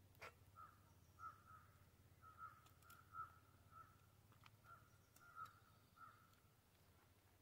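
Near silence with a faint bird calling over and over in short, high notes, about two a second. A few faint clicks are heard, loudest just after the start.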